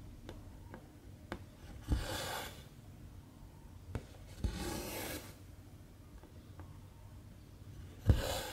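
Needle and thread being worked through cross-stitch fabric: three short swishes of thread pulled through the cloth, each starting with a sharp tick as the needle pokes through, with faint ticks in between.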